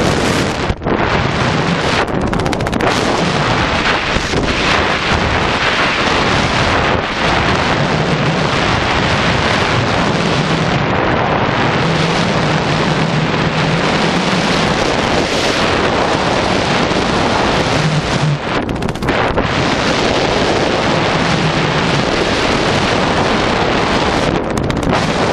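Wind rushing over a skydiver's camera microphone: a loud, steady buffeting roar of air.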